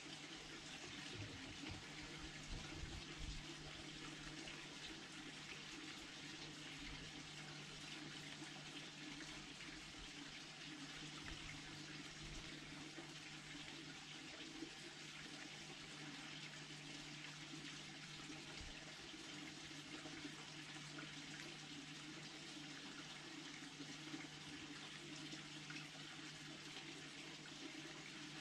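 Faint, steady hiss with a low hum underneath and a few soft low thumps, mostly in the first few seconds; no distinct sound of the fox feeding stands out.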